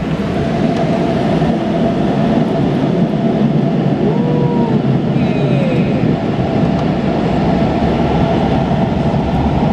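Automatic car wash air dryer blowers running steadily, a loud, even rush of air heard from inside the car.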